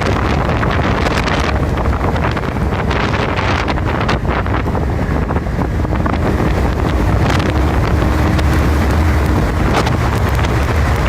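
Hurricane-force wind blowing hard across the microphone: a loud, steady rumbling rush with gusts and a few short cracks.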